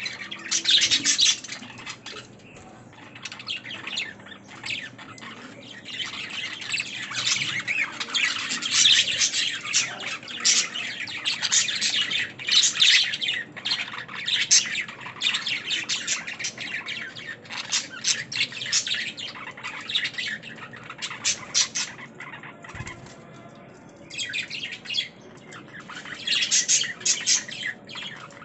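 Budgerigars chirping and chattering: dense runs of quick, high chirps and squawks from a flock, with a quieter patch a little after two-thirds of the way through.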